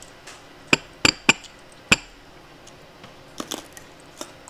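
Four sharp clicks in the first two seconds, then a few fainter ticks after about three and a half seconds: the crisp clicks of eating at a table.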